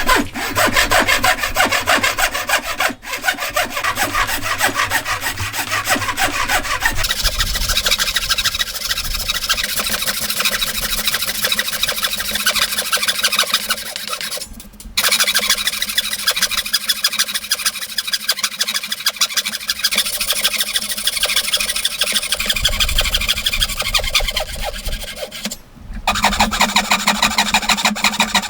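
Hand saw cutting through wood in quick, steady back-and-forth strokes, stopping briefly three times and starting again.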